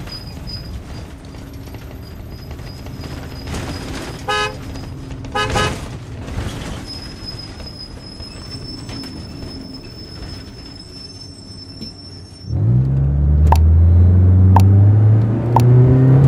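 City street traffic with two short car-horn toots, about four and five and a half seconds in. A few seconds before the end, a loud low engine starts up and runs, rising a little in pitch, with a sharp click about once a second.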